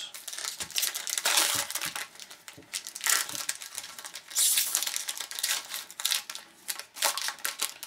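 Foil trading-card pack wrappers being torn open and crinkled by hand: a run of irregular crackling rustles and small clicks, with two louder stretches, one about a second in and one past the middle.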